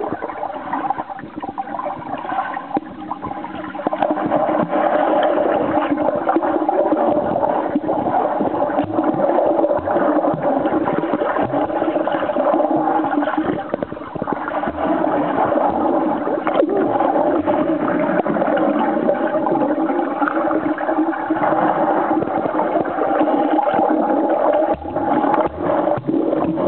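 Swimming-pool water heard through a submerged camera: a steady, muffled hum with churning water and bubbles, getting louder about four seconds in.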